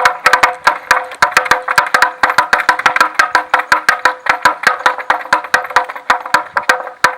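Klopotec, a wind-driven wooden vineyard rattle, clattering as its wooden hammers strike the wooden sounding board. The knocks come fast and slightly uneven, about seven a second, each with a short wooden ringing tone.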